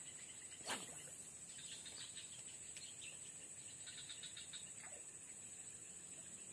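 Swamp ambience: birds chirping in short repeated runs over a steady high insect drone, with one brief falling swish just under a second in.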